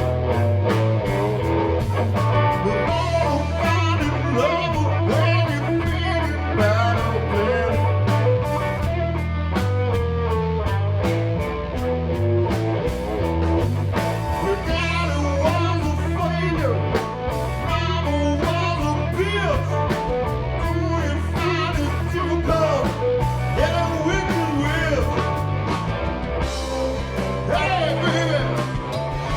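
A blues-rock band playing live: electric guitar, bass and drums, with the guitar bending notes over a steady bass and cymbal beat.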